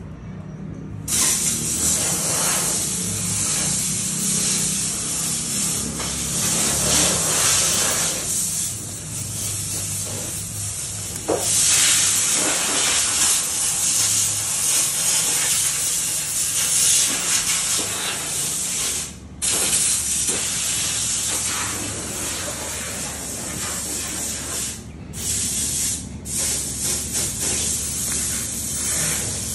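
Loud, steady hiss, broken a few times by sudden brief gaps: once about two-thirds through and twice more near the end.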